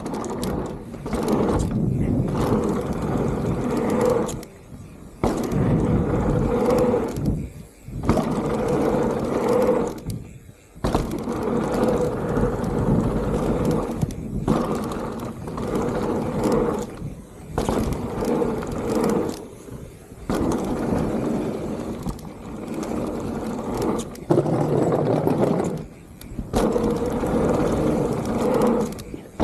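Mountain bike ridden fast down a dirt jump line: knobby tyres rolling and scraping over the dirt, with rattling from the bike. The rolling noise breaks off briefly about eight times as the wheels leave the ground over jumps and drops, with knocks on the landings.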